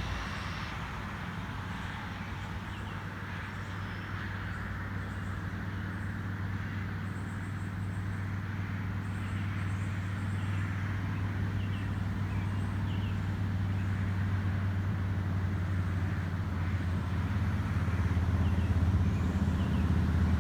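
Motor vehicle engine running with a steady low hum that grows louder toward the end, with a few faint high chirps over it.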